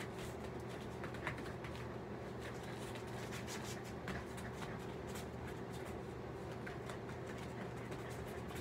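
Quiet room tone with a steady low hum, and faint scattered taps and rustles from a small dog moving, spinning and jumping on foam floor mats.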